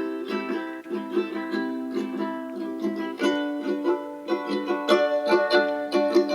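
Music played through a Soundcore Motion 100 portable speaker, a steady run of quick pitched notes, with the speaker's bass-up mode just switched on.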